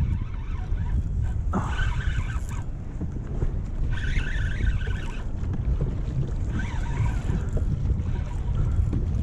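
Wind buffeting the microphone: a steady low rumble, with a few brief brighter sounds now and then.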